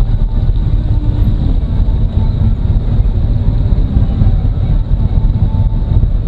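Harley-Davidson Road Glide Ultra's V-twin engine running as the motorcycle is ridden, picked up by a camera mounted on the bike: a loud, steady low rumble with no letup.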